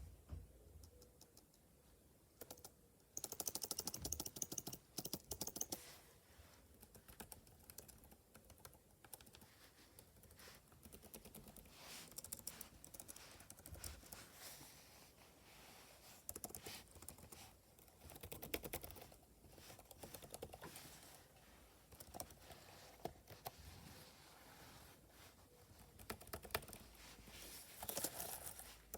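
Quiet computer keyboard being typed on: soft, rapid keystroke clicks, with a louder fast flurry a few seconds in and more near the end.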